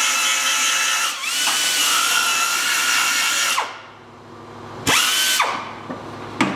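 Pneumatic belt sander running at full speed with a steady high whine and air hiss, grinding away a steel sill flange. Its pitch dips briefly under load about a second in. It spins down a little past halfway, then runs in a short burst around five seconds and gives a brief blip near the end.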